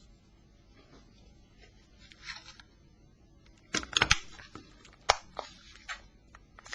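Sharp plastic clicks and snaps as the Nokia 2100's plastic covers are handled and pressed together: a quick cluster of clicks about four seconds in and one more a second later, with light rustling of the parts before and after.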